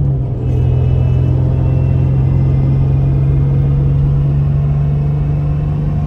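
Supercharged Toyota 4Runner engine heard from inside the cab, holding a steady low drone while the truck drives at freeway speed, with road noise underneath.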